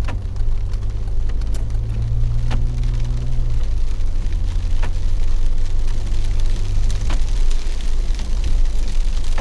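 Off-road vehicle driving: a low, steady engine drone that rises in pitch for a couple of seconds and then settles, over steady tyre and road noise, with a few sharp clicks and ticks.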